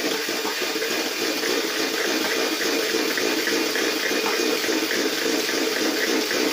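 Electric hand mixer running steadily, its beaters churning cake batter in a stainless steel bowl.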